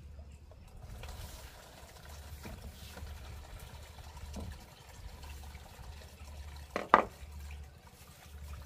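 Hands washing in a plastic basin of water, with light splashing and sloshing. A sharp double knock about seven seconds in, the loudest sound.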